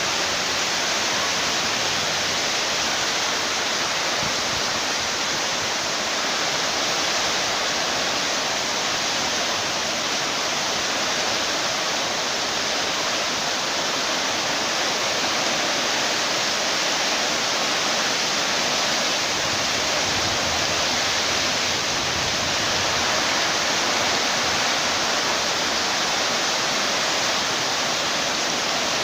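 Rain falling steadily on a tin roof, a dense, even hiss that does not let up.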